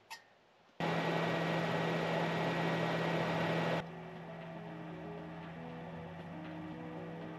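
A spoon clinks once against a metal mug, then a steady hiss with a low hum runs for about three seconds and cuts off suddenly, giving way to quiet background music with a soft, stepping melody.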